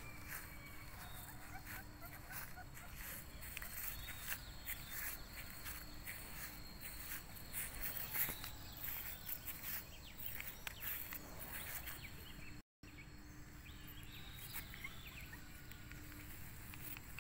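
Footsteps and rustling in dry grass: a steady scatter of soft crackles, broken by a brief dropout about two-thirds of the way through.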